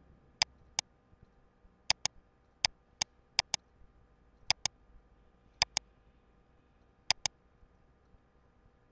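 Computer mouse button clicking: sharp clicks, mostly in quick pairs, about every second, over a faint steady hum.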